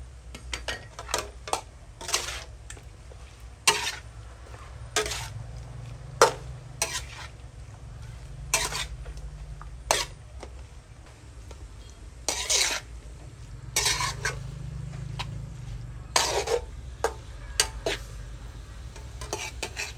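Metal spatula scraping and clanking against a steel wok in irregular strokes, roughly one a second, as octopus and vegetables are tossed in a stir-fry, over a steady low hum.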